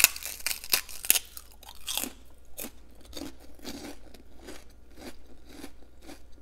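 A person biting into and chewing a crispy fried prawn cracker close to the microphone: a loud cluster of crunches in the first second, then steadier crunchy chewing at about two chews a second.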